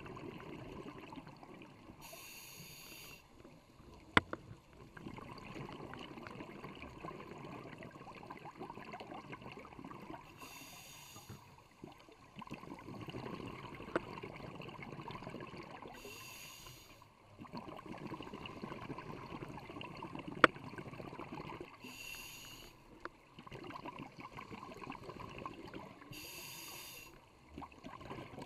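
Scuba diver breathing through a regulator underwater: short hissing inhalations every five or six seconds, alternating with longer stretches of bubbling exhalation. A few sharp clicks stand out, at about four, fourteen and twenty seconds in.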